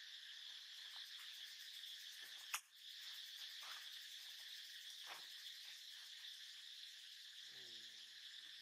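Faint, steady high-pitched chorus of forest insects, with one sharp click about two and a half seconds in. A short voice starts near the end.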